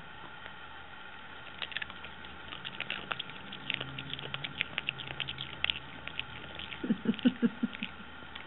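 Chihuahua chewing crunchy chips: a quick run of small, crisp crunches. Near the end come a few louder, deeper chomps.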